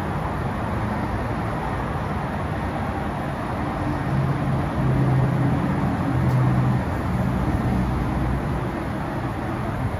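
Road traffic noise: a steady rush, with a low engine hum swelling louder for several seconds in the middle as a vehicle passes.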